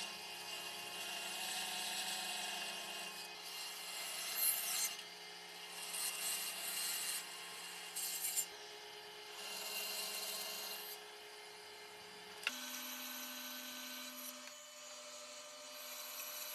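Band saw running with its blade cutting through a thick wooden block: a steady motor hum under a sawing hiss that swells and eases as the wood is fed, with a few short sharp peaks. About twelve seconds in the sound changes suddenly to a different, higher hum with a lighter cut.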